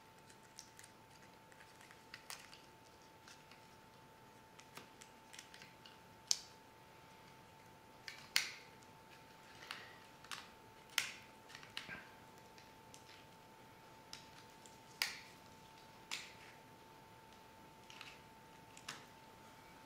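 Faint, irregular small clicks and taps of plastic and metal parts as a disassembled compact digital camera's shutter-button assembly and circuit board are handled and fitted back together, about a dozen sharp clicks scattered through, over a faint steady high tone.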